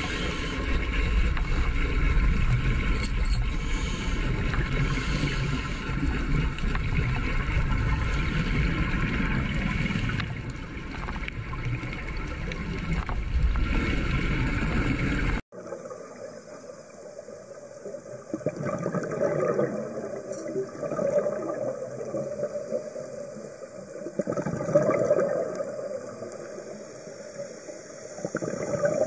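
Underwater recording: a steady droning hum with several held tones, which cuts off sharply about halfway. After the cut come quieter gurgling water sounds that swell every four to five seconds.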